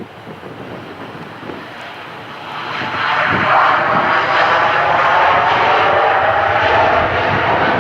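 Jet airliner's engines passing close by, a rushing roar that builds sharply about three seconds in and stays loud.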